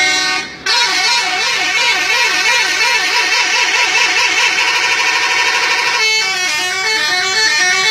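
Bus telolet horn, a set of multi-tone musical air horns, playing loudly: a held chord that cuts off about half a second in, then a fast warbling tune that switches back and forth between pitches for about five seconds, changing to a different stepped tune near the end.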